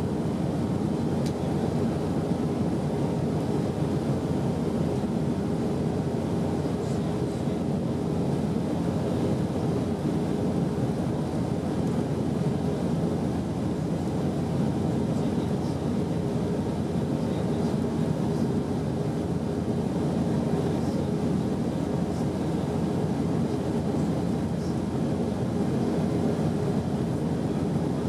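Steady jet engine and airflow noise inside the cabin of an Airbus A319 climbing after takeoff, an even low rumble that holds level throughout.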